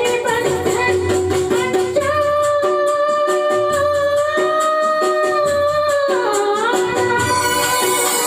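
A man singing into a microphone in a high, woman-like voice over a backing track with a steady beat. About two seconds in he holds one long high note for some four seconds, then slides down.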